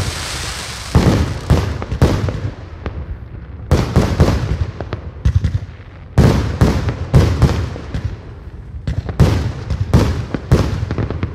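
Aerial fireworks display: a fast, irregular string of sharp bangs from launching and bursting shells, several to the second at times, with a hissing crackle in the first couple of seconds.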